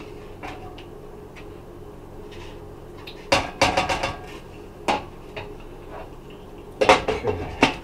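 A ladle clinking and scraping against a saucepan and a bowl as stew is dished up: a cluster of clinks a little over three seconds in, a single one near five seconds, and another cluster near the end.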